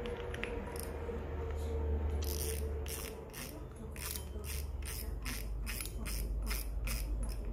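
A size-8000 spinning fishing reel being handled and cranked, ticking regularly about three times a second from about two seconds in, over a low steady hum.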